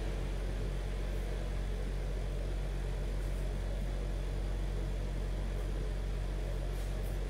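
Steady low hum with evenly spaced overtones and a faint hiss over it, unchanging throughout.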